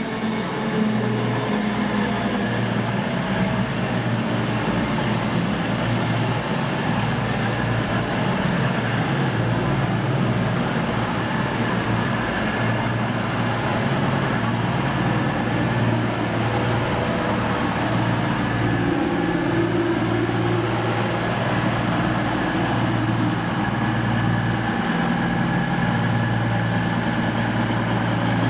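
A train running steadily: a low mechanical drone with several steady tones over a rushing noise, holding even throughout.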